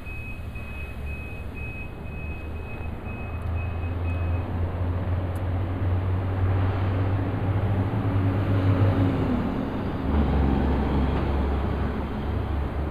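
A motor vehicle's engine running with a steady low hum that grows louder partway through, with a high repeating beep, about two a second, that stops after about four seconds.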